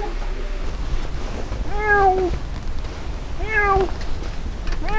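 A brown tabby cat shut in a pet carrier meowing three times, about a second and a half apart, each call rising and then falling in pitch.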